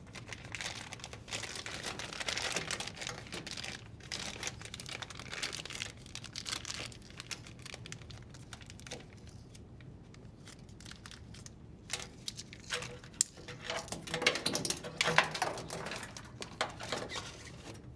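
Plastic sheeting crinkling and rustling in uneven bursts as it is wrapped around a washer wire-harness plug connection, with scattered small handling clicks.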